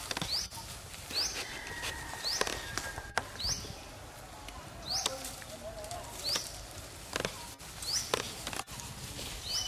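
A high chirping call, each note a quick upward sweep, repeated about eight times at roughly one-second intervals, over scattered sharp clicks and rustling.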